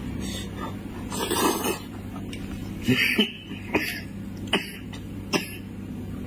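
Close-up eating sounds of a spiced sheep's head being torn apart by hand and eaten: a noisy suck or breath about a second in, then a handful of short sharp clicks from the mouth and the meat, over a steady low hum.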